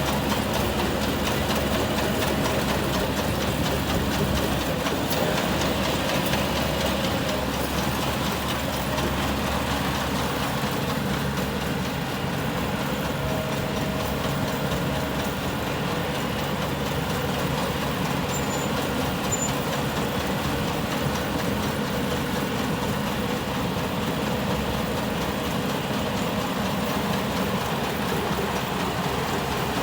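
Rice combine harvester running steadily, its engine and threshing machinery making a continuous mechanical din.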